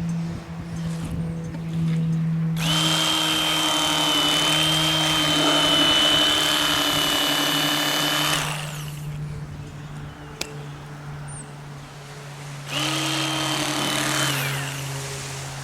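Electric fillet knife motor running twice, a long run of about six seconds and then a shorter one of about two seconds, each with a steady high whine. A low steady hum lies underneath throughout.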